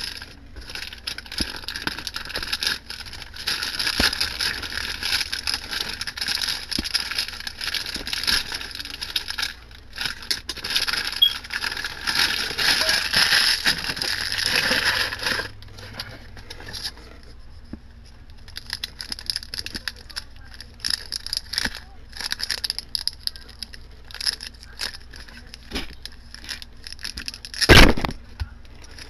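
Thin clear plastic packaging bag crinkling and rustling as it is pulled open and peeled off a small figure, for about the first half. Then quieter handling with scattered clicks of small plastic parts, and one sharp knock near the end.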